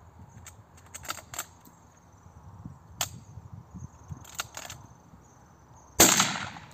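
A single hunting shotgun shot about six seconds in, a sharp blast that fades over about half a second. A few fainter sharp clicks come before it.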